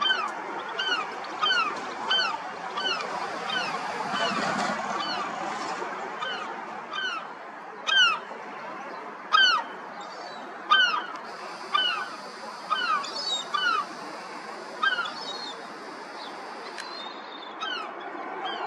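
Birds calling over and over, each call a short downward-slurred note, about two a second at first and then more scattered, over a steady background hiss.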